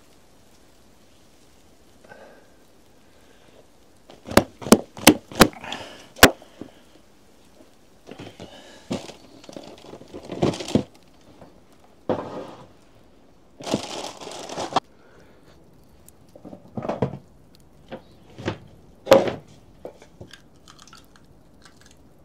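Handling noises: five sharp knocks in quick succession, then bouts of rustling and crinkling, then a few more scattered knocks and thuds.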